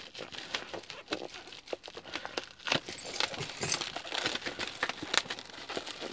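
Plastic bubble wrap crinkling and rustling in the hands as it is pulled and peeled open around a boxed item, with irregular sharp crackles and clicks.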